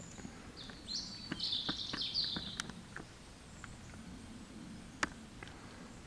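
A small songbird sings one quick phrase of high, warbling notes lasting about two seconds, starting about half a second in, over faint scattered clicks and rustles. A single sharp click about five seconds in.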